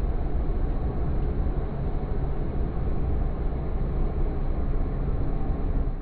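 John Deere 7580 self-propelled forage harvester chopping standing corn for silage, heard close at the corn header: a steady, heavy mechanical rumble of the machine working.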